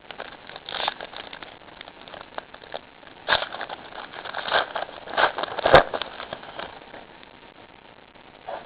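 Trading cards and their pack wrapper being handled: irregular crinkling and rustling with small clicks, loudest and busiest in the middle, with one sharp click just before the six-second mark.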